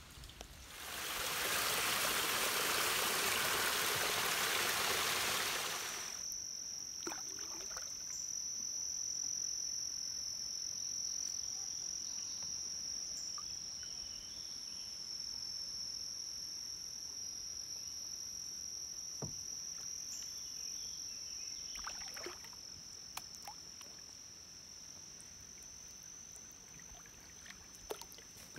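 A loud rushing hiss for about the first five seconds, then insects droning steadily at a high pitch in the creekside trees, with a few faint drips and knocks from a kayak paddle.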